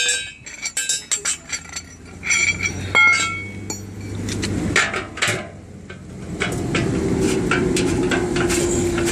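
Metal knocks and clinks of a wrench working a bus wheel's lug nuts, several sharp strikes with brief ringing in the first half. A steady hum comes in about two thirds of the way through.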